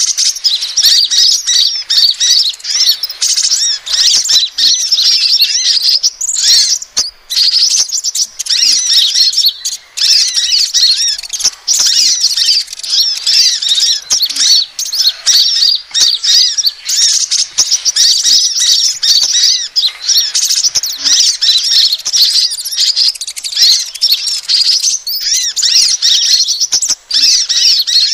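Sunbird calls played as a bird-trapping lure: a dense, continuous stream of high, quick chirps and twitters, with a couple of brief breaks.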